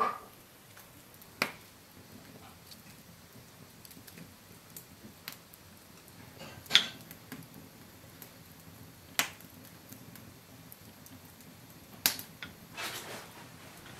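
Small nut shells cracking and clicking as kernels are picked out by hand: about six sharp, separate cracks, the loudest about halfway through, with a short rustle of shells near the end.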